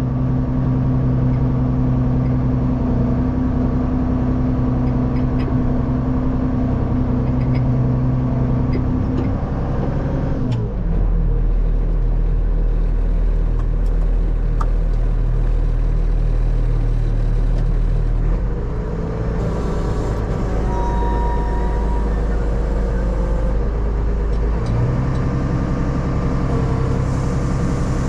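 Farm tractor engine running steadily. About ten seconds in its note drops lower and heavier, and it returns to the earlier, higher note near the end.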